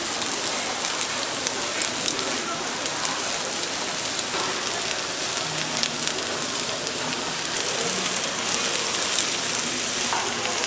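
Takoyaki batter sizzling in a hot takoyaki griddle pan: a steady hiss full of small, quick crackles.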